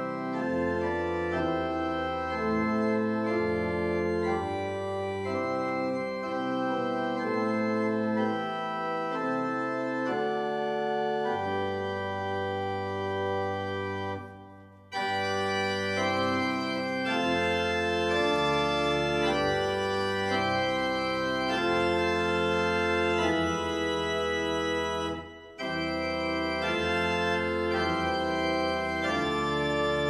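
Small Flentrop pipe organ playing slow music in held chords that change step by step, with two brief breaks between phrases, one about halfway through and one near the end.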